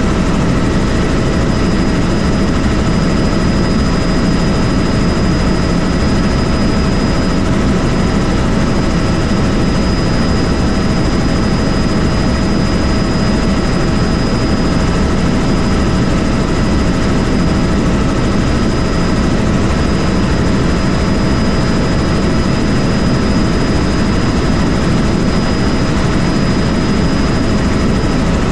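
Helicopter in steady flight: loud, unbroken rotor and engine noise with a steady high whine over it.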